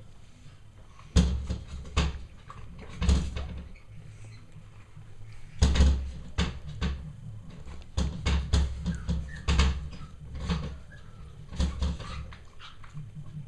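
Irregular dull thumps and rustles close to the microphone, in clusters with quieter gaps between: the camera bumping and brushing against squirming three-week-old puppies.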